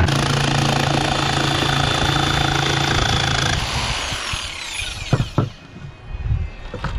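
Power tool cutting the radio's mounting hole in a panel, its motor running steadily, then released about three and a half seconds in and winding down. A couple of sharp knocks follow as the panel and cut-out are handled.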